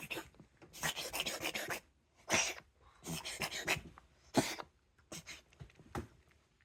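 Adult cat reverse sneezing: a string of noisy, rapid nasal inhalation bouts about a second apart, the last few shorter. A common spasm in cats that a vet called nothing to worry about, settling within seconds.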